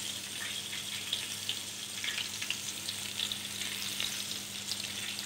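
Chicken gola kababs sizzling in oil and lemon juice on a hot sizzler pan: a steady hiss with fine crackles.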